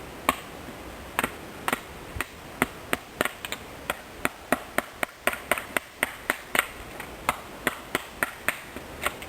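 A knife chopping thin resin-filled kindling sticks: a quick, uneven string of sharp wooden knocks, about three a second.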